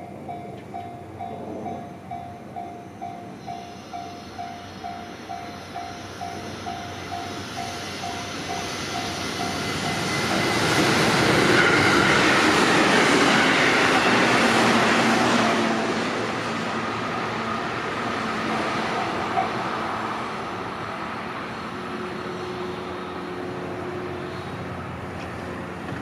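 Japanese level-crossing warning bell ringing in an even ding-ding, about two strikes a second. A JR Tokaido Line electric train then passes over the crossing, and its rumble and wheel noise, loudest for about five seconds midway, drown out the bell before fading away.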